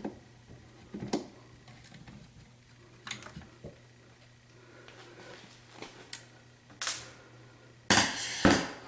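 Screwdriver and plastic icemaker parts being worked by hand: scattered light clicks and taps, then a louder burst of handling noise lasting under a second near the end.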